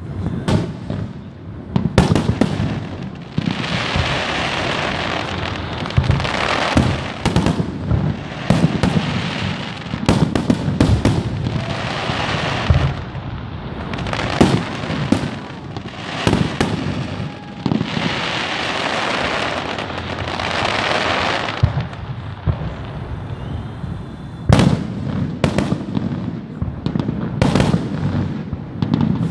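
Aerial fireworks show: shells bursting in a rapid, irregular series of booms and bangs, with spells of a few seconds each of dense crackling hiss between them.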